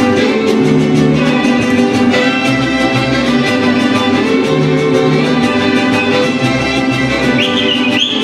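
Mariachi band playing, the violins carrying the melody over rhythmic guitarrón bass notes.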